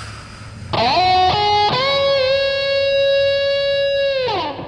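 Electric guitar playing a single-line lead melody, sliding up into a few short notes and then holding one long sustained note that slides down near the end.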